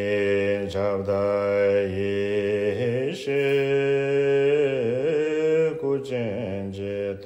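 A man's voice chanting a Tibetan Buddhist prayer in a slow melody of long held notes, changing pitch a few times, with brief breaks for breath.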